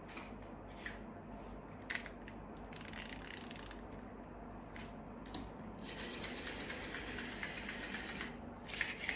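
Small objects being handled on a desk: scattered clicks and rustles, with a longer rustle about six seconds in.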